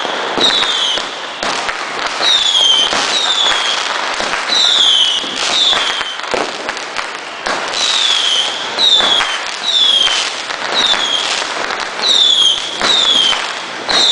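Fireworks display: a quick string of short whistles, each falling slightly in pitch, about one or two a second, over steady crackling and popping.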